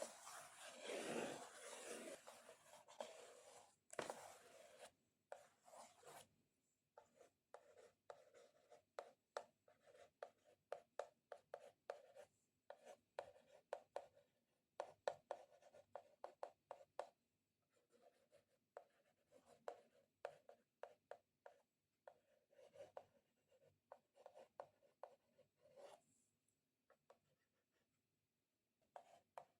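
Long fingernails scratching across a cardboard box, then tapping on it in rapid clusters of sharp clicks with short pauses between them.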